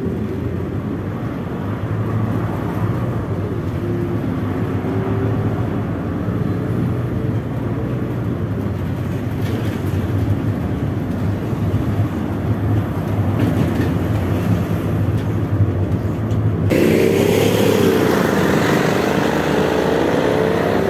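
Cabin noise of a MAZ 206 city bus under way: steady engine and road rumble with a faint whine that climbs in pitch as it gathers speed. About three-quarters of the way through it cuts abruptly to louder street traffic outside, with a vehicle engine rising in pitch as it pulls away.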